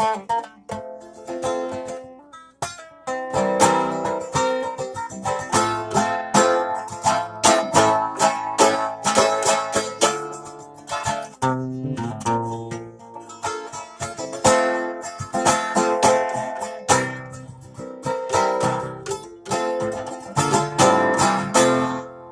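A plucked string instrument, guitar-like, played solo in quick runs of picked notes and chords. The playing thins briefly about two and a half seconds in, then carries on densely.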